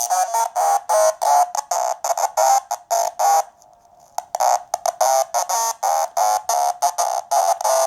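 Sequenced acid-style synth line from a PoodleGroomer Eurorack module: a self-oscillating filter's sine squared up and run through a resonant low-pass filter with diode clipping, giving a buzzy, talking, squelchy tone. Short notes pulse at about four a second, with one brief break a little before the middle.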